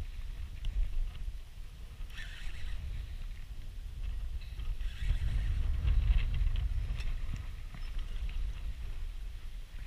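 Low, uneven rumble of wind and water around a small boat on a lake, swelling about halfway through, with a few faint clicks.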